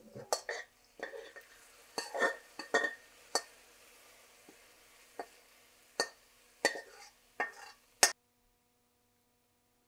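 Metal spoon scraping and knocking against a wok as thick roasted chili paste is scooped out into a bowl: a dozen or so short, sharp scrapes and clinks, the loudest about eight seconds in.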